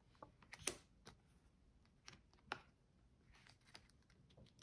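Playing cards being slid and tapped into place in a fanned-out hand on a wooden tabletop: a few faint, light clicks and taps, the sharpest a little under a second in and about two and a half seconds in.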